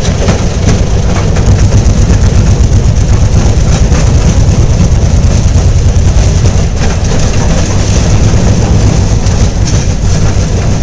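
An engine running steadily up close, with a fast, even low pulse.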